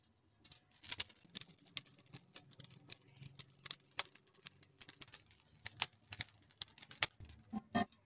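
Parchment paper crinkling and crackling in irregular clicks as the pie is lowered into the pot on it, with a short metal clink near the end.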